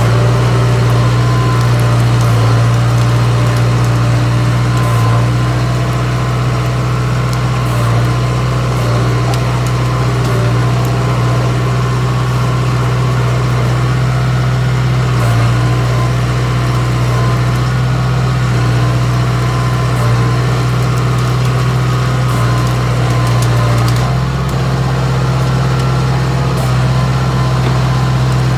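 An old Komatsu bulldozer's diesel engine running steadily as the dozer works through the woods, heard from the operator's seat. It holds a strong, even low drone, and its note dips briefly now and then.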